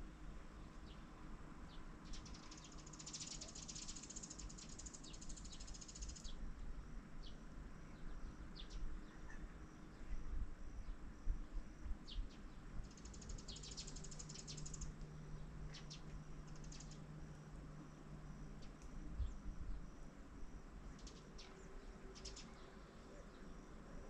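Wetland ambience of birds and insects: short high chirps scattered throughout, and three bursts of fast, high chirring a few seconds long, one near the start, one about halfway and one near the end, over a faint low rumble.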